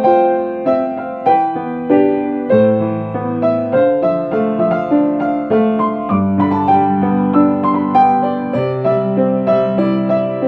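Piano music: a steady stream of struck notes over low bass notes that change every two to three seconds.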